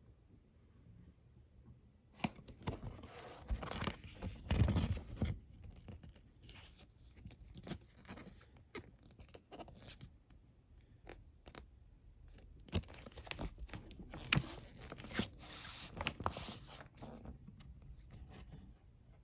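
Hands handling the packaging of a vinyl LP: two stretches of noisy crinkling and scraping, about two seconds in and again about thirteen seconds in, with scattered light clicks and taps between.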